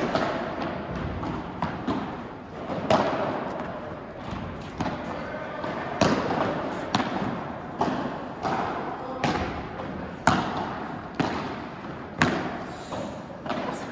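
Padel rally: the ball hit back and forth with padel rackets and bouncing on the court, a sharp knock roughly every second.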